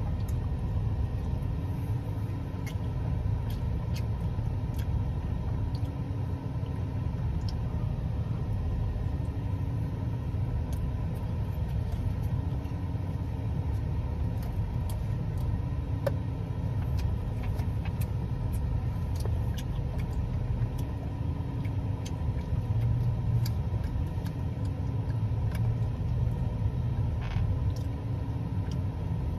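A steady low rumble with faint scattered clicks and smacks of someone chewing a roast beef sandwich.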